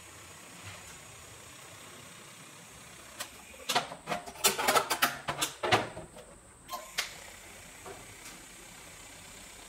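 Metal knocking and clattering as a thin 1.2 mm stainless steel tank is handled and shifted on the workbench, a burst of irregular knocks lasting about three seconds from roughly three and a half seconds in. Before and after it there is only a faint steady background.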